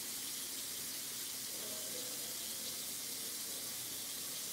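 Steady sizzling hiss from rice cooking in a pot on a gas stove.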